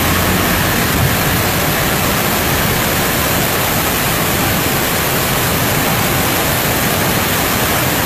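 Flood-swollen, muddy waterfall pouring down onto a road at close range: a loud, steady, unbroken rush of water.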